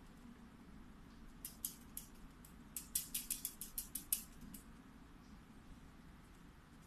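Cats at play with a feather wand toy: a quick run of light clicks and taps, about a dozen, bunched in the middle, over a quiet room hum.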